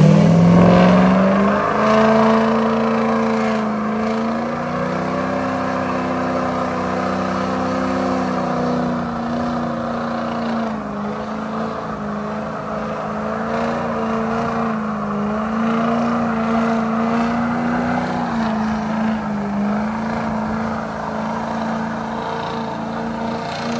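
Lifted Ford F-250 Super Duty's 6.0 Power Stroke diesel V8 doing a burnout. It revs up in the first second, then is held at high revs with small rises and dips while the rear tyres spin on the pavement.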